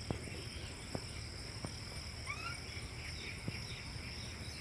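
Rural outdoor ambience: insects chirring steadily and high, with a few sharp knocks scattered through and a couple of short rising bird chirps about halfway.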